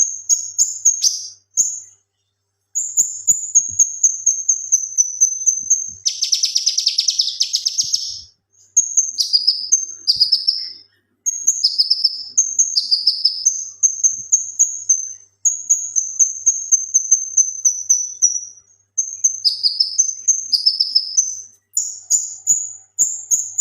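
Male cucak kinoi singing in full voice: rapid runs of high, sharp repeated notes, some sliding down in pitch, in bouts broken by short pauses, with a dense harsh rattle about six seconds in.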